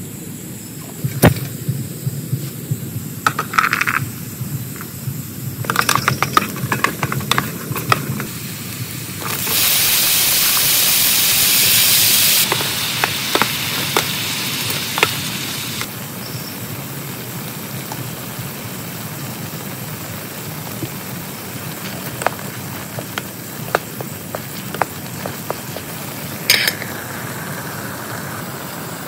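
Rain falling steadily on a tent, with scattered clinks and knocks from gear being handled. About ten seconds in, a louder hiss comes up for about three seconds, then eases off over the next few.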